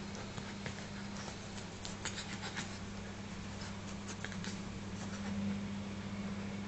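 Dog and cat scuffling, their claws making light scratches and clicks in scattered bunches, most about two seconds in and again about four seconds in.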